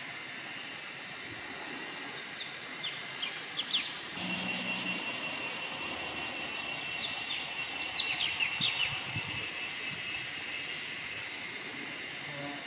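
Forest ambience: a steady high insect drone with short, sharp falling bird notes, a handful about three seconds in and another quick run about eight seconds in.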